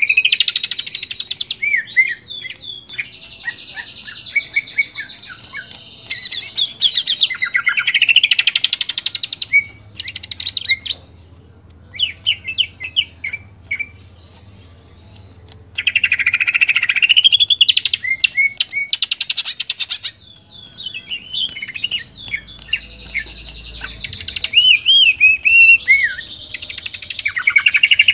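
Cucak ijo (green leafbird) singing loud, varied song in bursts: fast trills, rising and falling whistled notes and rapid chattering phrases. The song breaks into a few seconds of sparse notes twice. This is the open, mimicry-filled song that keepers play to tutor young birds.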